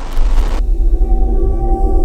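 Dark ambient background music: a deep low rumble under long held tones, opening with a short burst of hiss that cuts off about half a second in.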